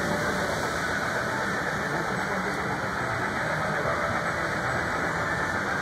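Model trains running on a layout: a steady rumble of wheels on track and electric motors, with a low hum.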